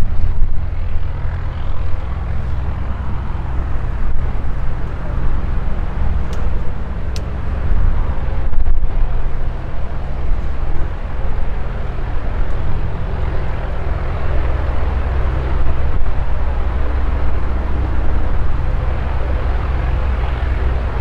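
Light propeller aircraft's piston engine running steadily, a low, even engine sound without pauses.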